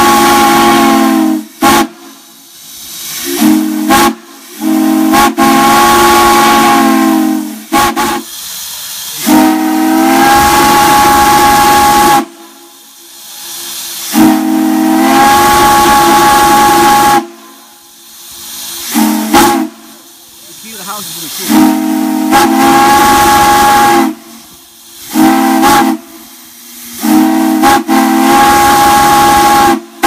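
Hancock flattop long-bell three-chime steam whistle blown in a run of long and short blasts, each a steady low chord, with steam hissing between the blasts.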